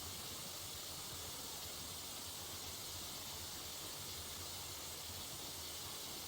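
Steady hiss with a faint low hum underneath: the background noise of the sound system and recording, with no other sound.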